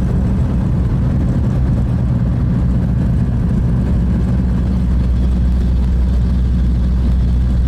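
Steady low rumble of a vehicle on the move, engine and road noise from inside the cab, holding an even level throughout.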